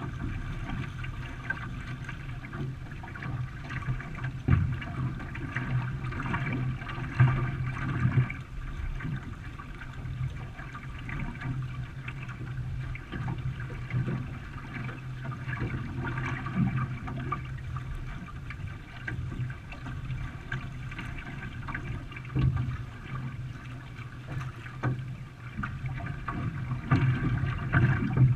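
Water splashing and gurgling around a canoe being paddled, with irregular small splashes over a steady wash of moving water.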